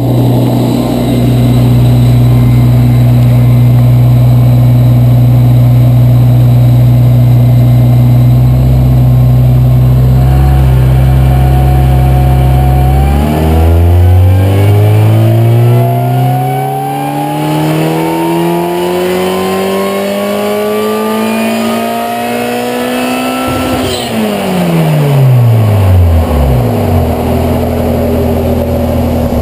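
Supercharged Honda K24A2 four-cylinder in an EP3 Civic Si doing a full-throttle dyno pull. The engine holds a steady note for about thirteen seconds, then the revs climb smoothly for about ten seconds to the top of the range and drop away quickly as the throttle closes, before settling back to a steady note.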